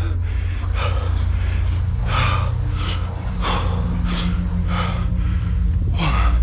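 A mellophone player's heavy, rapid breathing close to the microphone, a sharp breath roughly every two-thirds of a second, over a steady low rumble.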